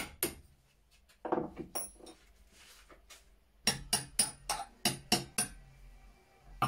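Hammer blows on a steel pin punch, working parts of a rusty Chassepot rifle apart: two sharp metallic taps at the start, some lighter clatter about a second in, then a quick run of about eight ringing strikes past the middle.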